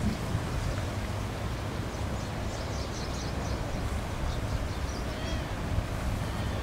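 Small birds chirping in quick, high calls from about two to five and a half seconds in, over a steady low rumble of wind and distant traffic.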